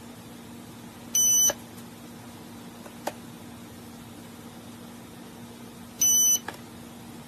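Two short, high electronic beeps about five seconds apart, over a steady low hum, with a few faint clicks between them.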